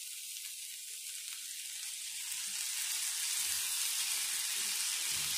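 Sliced potatoes, onion, cabbage and carrot sizzling in oil in a frying pan, a steady hiss that grows gradually louder as water is sprinkled over them by hand.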